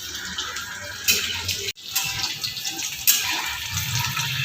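Batter-coated chicken pakoras deep-frying in hot oil: steady sizzling with sharper crackles now and then. The sound breaks off for an instant a little under two seconds in.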